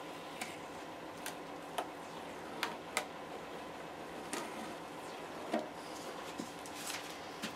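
Masking tape being peeled off a painted model-aircraft surface and crumpled by hand: about nine faint, scattered clicks and crackles over a low steady hum.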